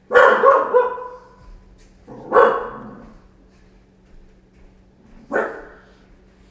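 A dog barking in three separate bouts a couple of seconds apart, the first the longest and loudest.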